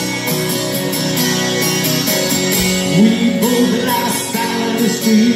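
Rock band playing live, with guitar and drums; a man's singing voice comes in about three seconds in.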